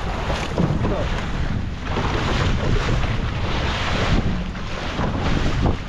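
Wind buffeting the microphone on a boat at sea, over a steady rush of sea water and waves.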